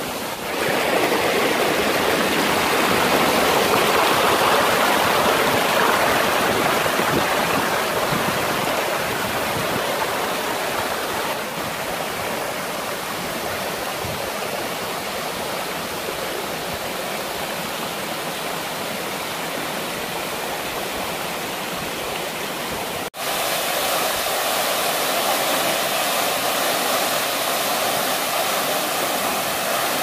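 Steady rush of a tall mountain waterfall and the shallow, rocky stream it feeds, with water splashing over stones. It breaks off for an instant about three quarters of the way through, then carries on.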